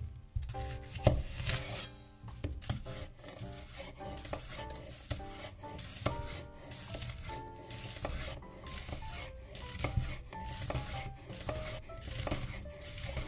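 Kitchen knife slicing a red onion into thin half-rings on a wooden cutting board: repeated short cuts, the blade knocking the board at irregular spacing. A melody plays underneath.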